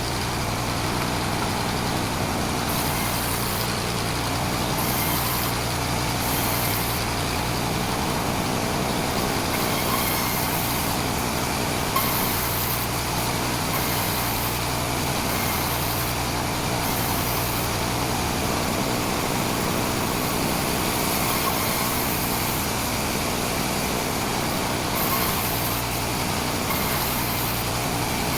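Sawmill machinery running steadily: a continuous engine-like drone with a higher hiss that comes and goes every second or two.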